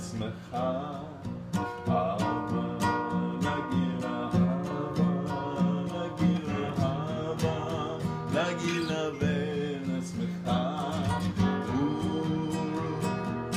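Acoustic guitar strummed in a steady rhythm, with a voice singing along at times.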